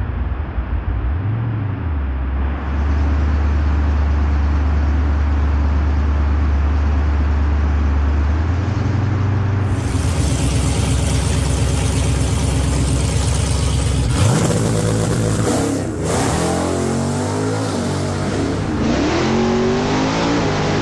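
Supercharged Hemi V8 of a Dodge Challenger drag car running near the starting line: a steady low drone at first, a rougher, pulsing engine note from about eight seconds in, then several rising and falling revs near the end as the car pulls forward.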